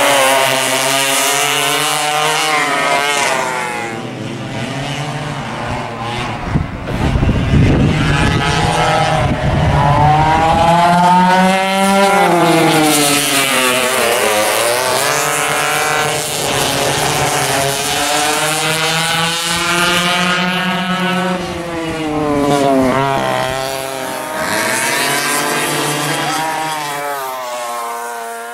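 Vintage dual rear-engine go-karts racing, their small engines revving up on the straights and dropping back into the corners over and over.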